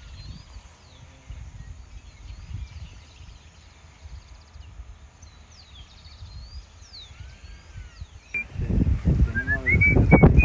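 Small birds chirping and calling over a soft rumble of wind on the microphone. About eight seconds in, a much louder wind rumble cuts in, with a whistled note that rises in steps and then holds.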